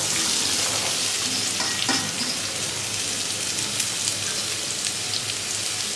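Chopped onions sizzling in hot oil, just tipped into the pan: a steady frying hiss, loudest at the start and easing a little as the onions settle.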